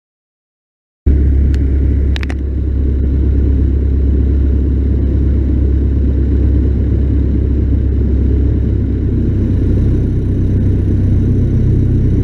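Cessna 152's four-cylinder Lycoming piston engine running, a loud, steady low drone, with two brief clicks soon after it comes in.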